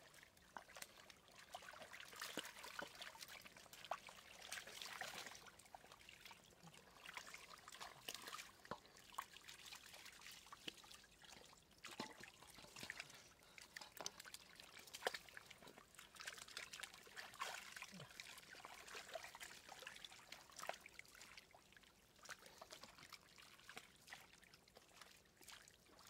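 Shallow water splashing and trickling in small, irregular bursts, with sharp little clicks and slaps in between.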